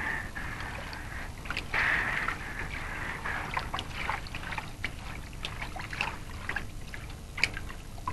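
Slushy broken sea ice and water sloshing and crackling as a harp seal pushes through it, with a louder splash about two seconds in and scattered sharp ice clicks throughout.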